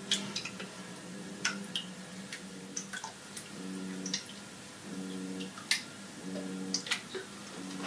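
WP-40 aquarium wave pump humming in pulses, its motor cycling on and off about every second and a half in wave mode, over a scatter of sharp irregular clicks. The hum is loud for a circulation pump.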